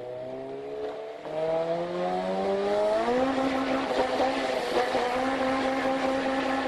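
Honda K20 four-cylinder engine accelerating hard, its pitch climbing. About a second in the pitch drops at a gear change. It climbs again and then holds steady at high revs from about three seconds in.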